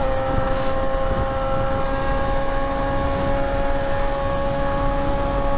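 Sport motorcycle engine running at steady revs while cruising, its note holding one constant pitch, over a low rush of wind and road noise.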